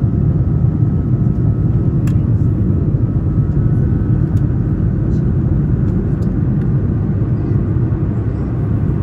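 Steady low rumble of an airliner's engines and rushing air, heard inside the passenger cabin, with a couple of faint clicks.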